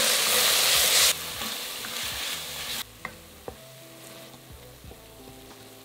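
Onion, garlic and ginger paste sizzling in hot oil in a casserole pan as it is stirred with a wooden spoon. The sizzle drops sharply about a second in and cuts out near the three-second mark, leaving faint background music and a couple of light knocks.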